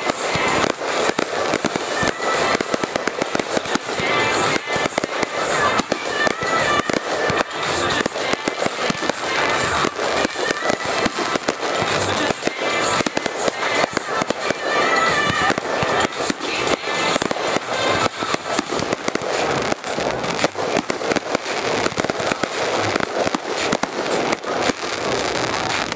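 Fireworks display going off in dense, rapid bangs and crackles, one report after another with no letup.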